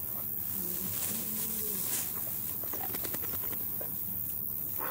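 A few low, coo-like bird calls about half a second to two seconds in, over steady outdoor background noise.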